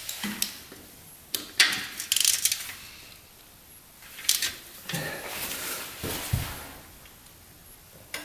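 Metal hand tools clicking and knocking against the engine at the oil drain plug of a 1977 Suzuki RM125: scattered sharp clicks, a quick run of clicks about two seconds in, and a duller thump about six seconds in.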